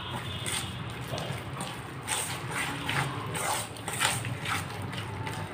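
Hand squishing and mixing a thick banana, fenugreek and gram-flour pakora batter in a steel bowl: a run of soft, wet squelches at an uneven rhythm.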